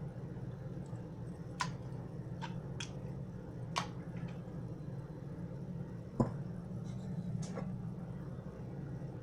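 Canned tomato sauce being emptied and the cans handled: scattered sharp taps and knocks, about seven, the loudest about six seconds in, over a steady low hum.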